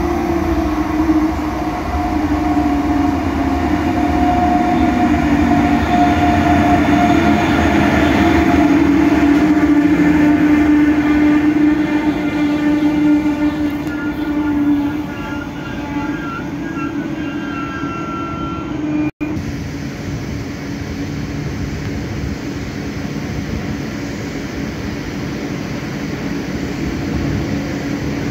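Koleje Mazowieckie double-deck push-pull train, hauled by an EU47 electric locomotive, rolling into the platform and braking to a stop. A steady low electric tone fades out about halfway through as thin brake squeals set in. The train then stands with a steady hum.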